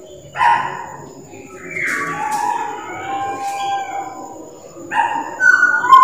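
Pied butcherbird singing: a phrase of low, flute-like whistled notes, some gliding in pitch, starting about half a second in, and a second phrase beginning about five seconds in.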